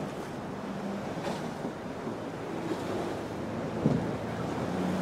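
Surf breaking with wind buffeting the microphone, while a boat engine drones faintly at times underneath. A single short thump comes a little before four seconds in.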